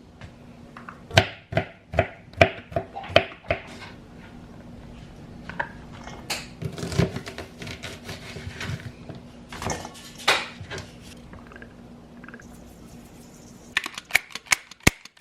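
Dishes and utensils clinking and knocking as they are handled: a quick run of about six sharp knocks in the first few seconds, scattered clatter after that, then another quick cluster near the end. A faint steady hum sits underneath.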